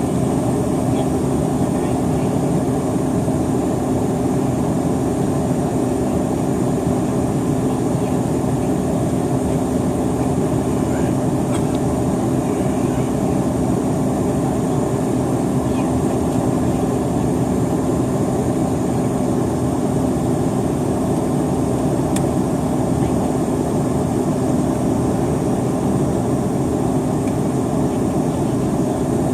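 Steady engine and air noise inside an aircraft cabin as the plane climbs after takeoff, an even rush with a constant low hum.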